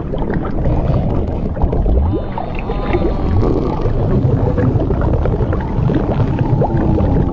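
Cartoon body-inflation sound effect: a dense low rumbling with many short squeaky, creaky glides rising and falling over it, meant as a body swelling up with liquid.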